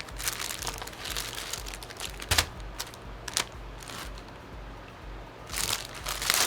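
Plastic packaging crinkling and rustling as it is handled, with scattered crackles, a sharper click about two and a half seconds in and a denser rustle near the end.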